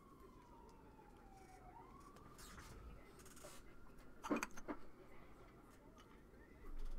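Trading cards and plastic card holders being handled: rustling and a few sharp clicks, the loudest about four seconds in. Underneath is a faint wailing tone that falls and then rises in pitch.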